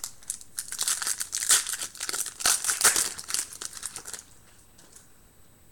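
Trading-card pack wrapper being torn open and crinkled by hand: a dense crackling rustle of plastic foil that stops about four seconds in.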